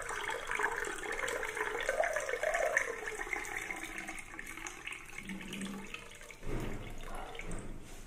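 Fruit juice poured in a thin stream from a height into a glass, splashing into the foaming juice as the glass fills.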